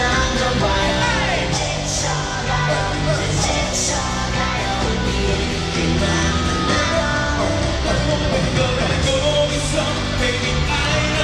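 Live pop concert music with singing, recorded from among the audience, with yells from the crowd over it.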